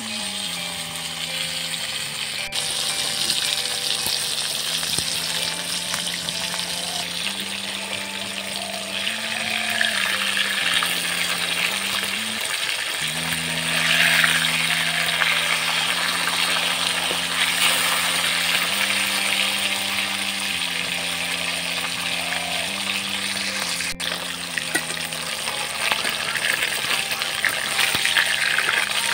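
Tilapia pieces frying in hot oil in a wok, a steady sizzle that flares up about halfway through as the pieces are turned with a spatula. Background music with sustained low notes plays over it.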